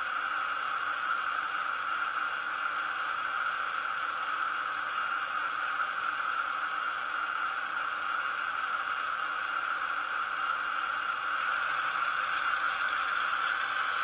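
Maybach diesel engine sound of an ESU LokSound 5 decoder, played through the small speaker of a model class 216 diesel locomotive, running steadily. It gets slightly louder over the last few seconds.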